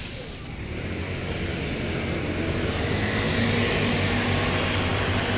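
Engine noise swelling over about three seconds and then holding steady, with a low hum underneath.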